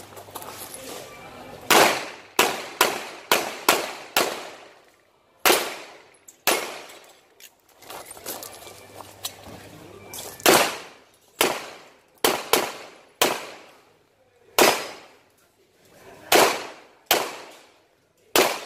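Handgun firing during an IPSC stage run: about twenty sharp shots, many in quick pairs, in strings separated by short pauses, each with a brief echo.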